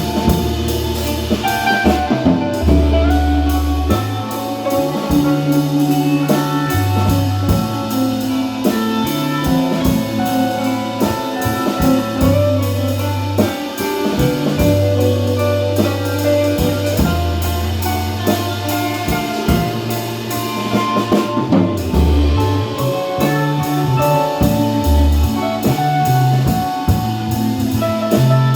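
Instrumental jazz-style music with a drum kit keeping a steady beat under a walking bass line and melody instruments.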